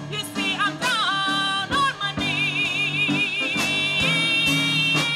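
Live band music: a high lead line with a wide, fast vibrato that slides into some notes, over steady lower accompaniment and scattered drum hits.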